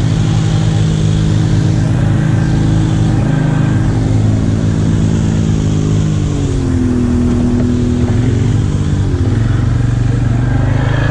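Can-Am ATV's V-twin engine running steadily. Its pitch drops about six seconds in and rises again about three seconds later.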